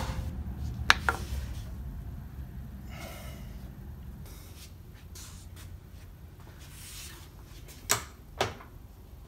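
Steel plate being set up in a milling machine vise: two quick sharp taps about a second in, then quieter handling, and two sharp knocks near the end as the machine's handles are worked. A low hum fades out by about four seconds in.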